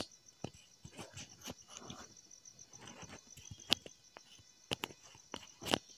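Quiet background with a faint, steady, high-pitched chirring and a few scattered sharp clicks, the loudest of them in the last couple of seconds.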